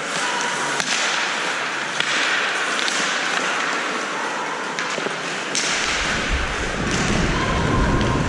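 Ice hockey play on a rink: skate blades scraping the ice, with several sharp clacks of sticks and puck. A low rumble sets in about six seconds in.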